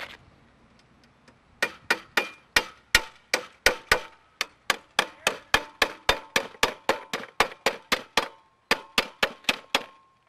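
Claw hammer driving nails through a steel ICF anchor hanger into a wooden joist: a quick, steady run of sharp blows, about three a second, with a brief pause near the end. The metal hanger rings faintly under the blows.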